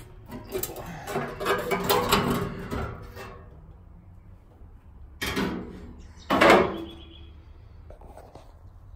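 Drilled-out sheet-metal cowl plenum panel being worked loose and lifted off a car body: metal scraping and rattling for about three seconds, then two louder scrapes about five and six and a half seconds in.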